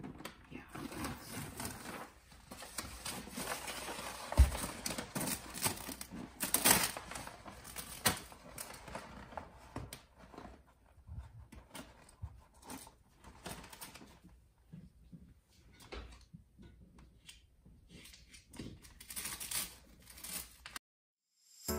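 Peel-and-stick wallpaper being handled: rustling and crinkling of the vinyl sheet and its backing as it is peeled and pressed into place, with scattered knocks and one sharp thump about four seconds in.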